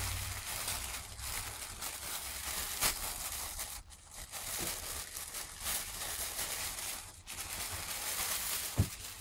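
Thin clear plastic packaging bag crinkling and rustling continuously as it is handled and a soft baby garment is pulled out of it. There is a sharper crackle about three seconds in and a short knock near the end.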